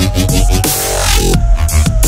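Electronic music track with heavy bass, a steady beat and a lead line that slides slowly in pitch.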